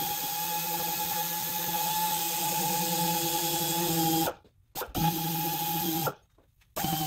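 Small air-powered polishing tool running with a steady whine and air hiss as it works a bunk's aluminum door frame. It cuts out briefly twice, about four and six seconds in, as the trigger is let off, then starts up again.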